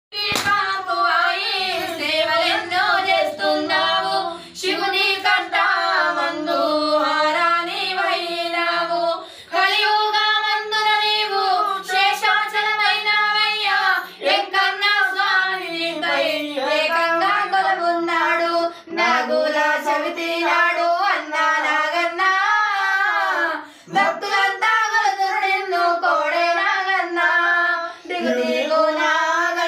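A high voice singing a devotional song in long melodic phrases, with short breaks between lines.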